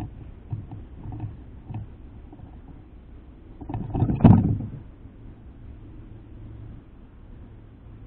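A few light taps of a bird pecking seed in a feeder dish, then a loud, brief flurry of wing flaps about four seconds in as a red-winged blackbird beats its wings at the dish and flies off.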